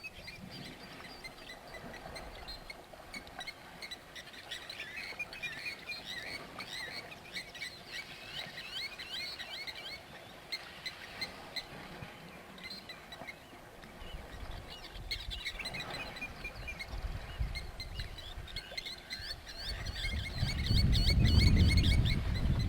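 Many birds chirping, with lots of short high calls overlapping. About twenty seconds in, a loud low rumble comes in underneath.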